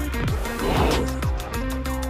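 Electronic background music with a steady kick-drum beat and held synth notes.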